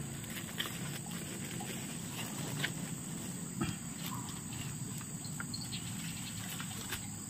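Steady high-pitched insect chorus, with a few faint short slurps and clicks as cooked river snails are sucked from their shells.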